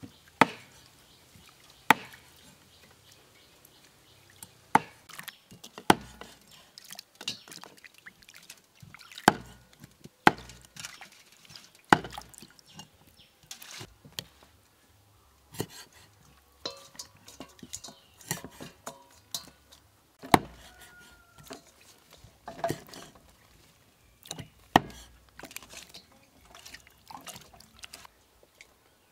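Cleaver chopping raw frog on a wooden chopping board: a dozen or so sharp strikes, irregularly spaced a second or two apart, with wet sounds of the raw meat being handled between them.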